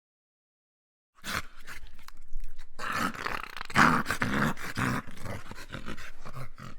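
A dog growling, starting a little over a second in after dead silence, loudest near the middle.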